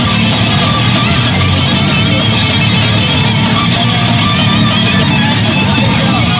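Rock music driven by electric guitar, playing steadily at a loud level.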